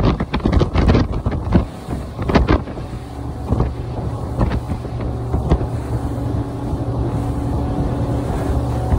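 An Everglades 395 center-console boat running fast offshore: wind buffets the microphone and spray splashes off the hull as it cuts through the chop. A steady low drone from its Yamaha 425 V8 outboards comes through more plainly after about three seconds, once the wind noise eases.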